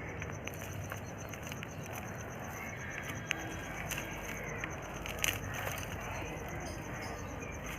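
Outdoor background with a steady, high-pitched insect trill of evenly spaced pulses. Over it come a few faint clicks and rustles as rhizomes and soil are handled.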